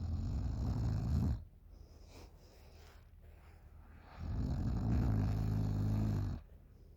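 A girl snoring in deep sleep: one snore trails off about a second in, and a second snore of about two seconds starts about four seconds in.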